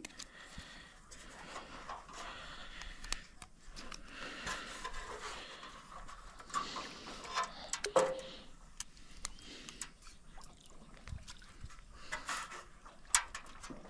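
Faint water sounds and scraping, with scattered small knocks and clicks, as a speared clown featherback is drawn in on the speargun line through the water beside the boat. A brief falling squeak comes a little past halfway.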